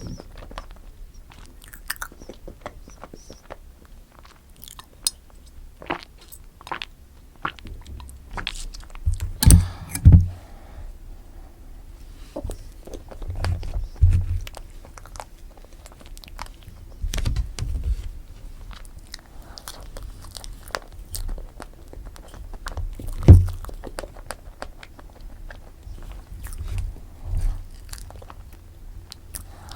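Close-miked chewing and biting of strawberry cream cake: irregular wet mouth clicks and smacks, with several louder low thumps.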